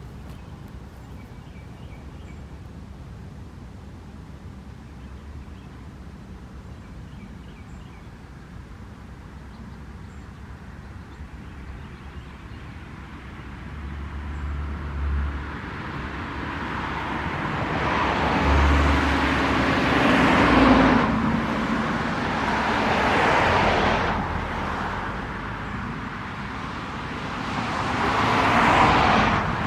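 Road traffic: several vehicles pass one after another, each a swell of tyre and engine noise that rises and fades, after a quieter first stretch of low background rumble. The loudest passes come about two-thirds of the way in and again near the end.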